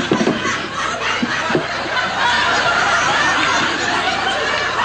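Studio audience laughing steadily, with the performers' own stifled laughs mixed in.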